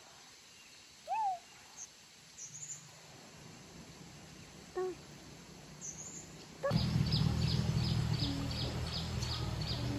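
Outdoor natural sounds: a few scattered calls in the first half, the loudest about a second in. About seven seconds in, a steady low hum begins with an even run of high chirps, about three a second.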